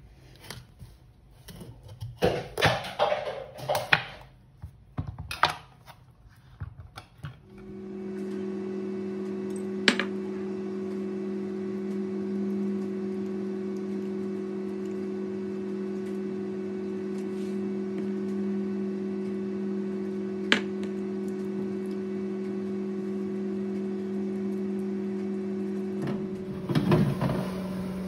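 Knife knocking and scraping through a pumpkin on a plastic chopping board, irregular sharp strokes. From about seven seconds a convection microwave oven hums steadily, with two single clicks. Near the end there is clattering as the tray goes into the oven.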